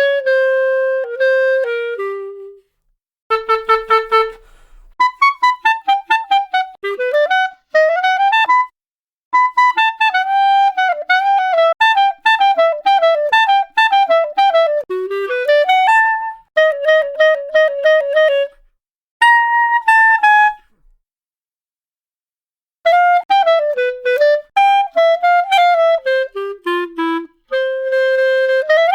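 Solo clarinet playing a melodic line of quick runs, rapidly repeated short notes and held notes, in phrases separated by brief pauses, with a longer pause of about two seconds around twenty seconds in.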